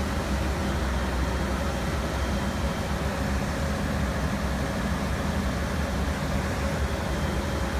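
Diesel engine of a yellow track-construction machine running steadily: an even low hum with a faint steady whine above it.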